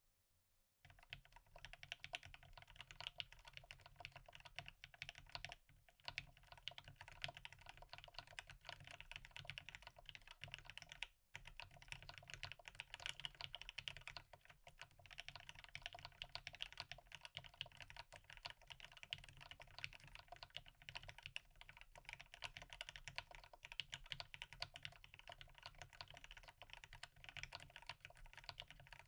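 Continuous typing on a custom Maja mechanical keyboard with lubed and filmed Marshmallow linear switches, a brass plate with no foam and GeekArk keycaps. It starts about a second in, with a brief pause twice.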